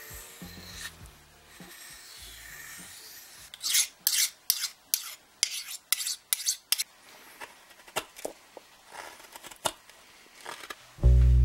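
Steel hook knife, ground from an old saw blade, being sharpened: a soft rubbing on a whetstone at first, then a quick run of about eight sharp scraping strokes as the blade is drawn along a sharpening rod, followed by a few scattered strokes. Music starts at the very end.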